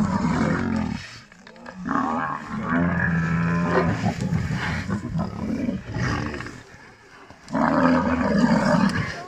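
Cape buffalo bull bellowing in distress as lions drag it down, several long moaning calls with short pauses between them.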